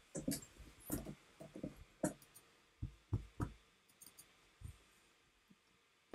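Scattered quiet clicks and soft thumps, about a dozen, irregularly spaced, from hands working controls.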